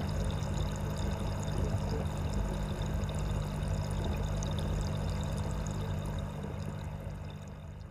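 Water churning and pouring into a test tank, heard muffled from under the water, with a steady low hum beneath the rush; it fades out near the end.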